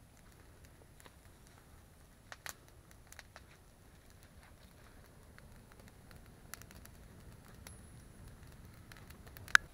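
Wood campfire crackling, with scattered sharp pops and snaps over a faint low rush, and one much louder sharp click near the end.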